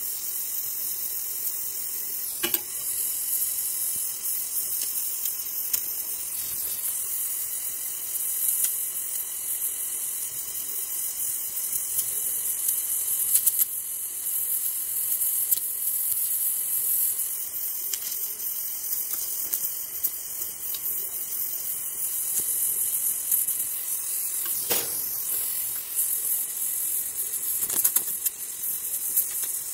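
Gas welding torch flame hissing steadily as aluminium filler rod is melted into an aluminium motorcycle engine block, with a few brief clicks.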